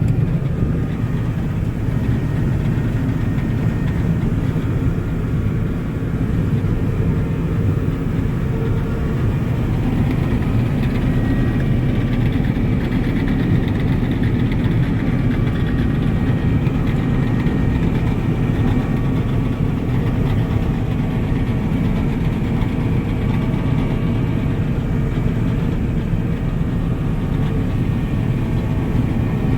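John Deere 9750 STS combine running steadily while harvesting wheat: an even, low drone of its diesel engine and machinery that does not change.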